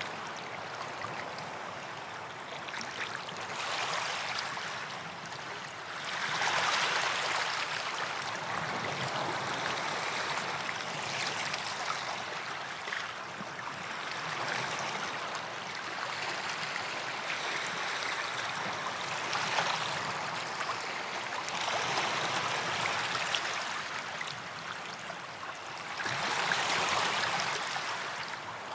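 Small waves washing up onto a sandy beach, a steady hiss of surf that swells every few seconds as each wave comes in.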